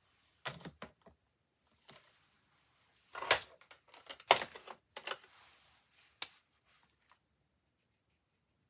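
Irregular clicks and clatters of plastic marker pens being picked out and handled on a craft desk, loudest about three and four seconds in.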